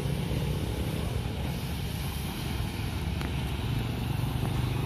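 Motorcycle engine running as it rides past, getting louder over the last second or so.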